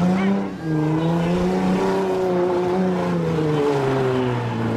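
A demolition-derby minivan's engine revving: the pitch climbs, dips briefly about half a second in, holds high, then drops back to a lower steady run near the end.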